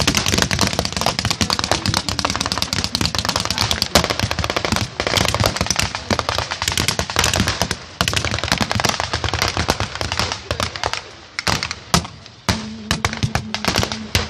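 Dense small-arms fire from blank rounds: a rapid, overlapping crackle of many shots, with a short lull before the firing picks up again near the end.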